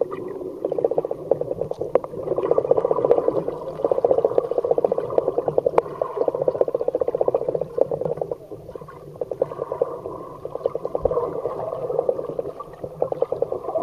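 Muffled underwater noise picked up by a submerged camera: a fast, rattling pulse that swells and fades, easing off for a couple of seconds about halfway through.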